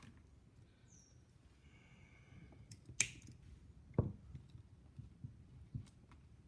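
A zip tie snipped through with one sharp snap about three seconds in, followed a second later by a dull knock.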